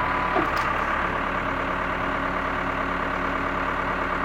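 Backhoe's diesel engine running steadily at a constant speed.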